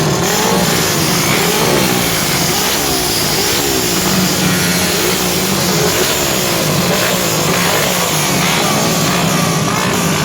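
Small-displacement racing motorcycle engines revving hard, their pitch rising and falling over and over in quick blips.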